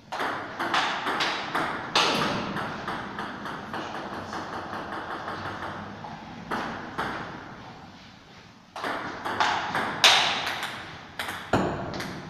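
Table tennis ball being hit back and forth, a series of sharp clicks off the bats and the table, with lighter rapid ticks between the rallies.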